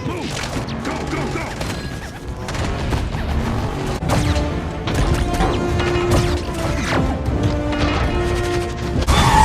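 Action-film battle soundtrack: crashes and heavy impacts over a film score, which settles into held notes from about four seconds in.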